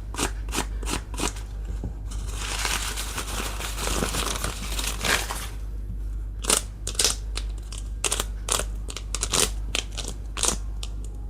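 Plastic toy packaging being handled and unwrapped, crinkling. It starts with a run of sharp crackles, then a few seconds of continuous rustling, then more separate crackles and clicks. A steady low hum runs underneath.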